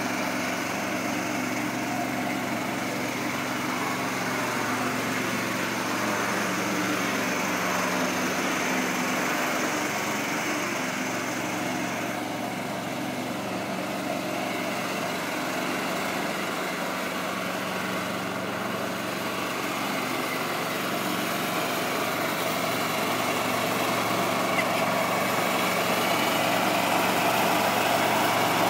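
Small petrol engine of a walk-behind lawn machine running at a steady speed while it tows a cart across the grass. It grows louder near the end as it comes closer.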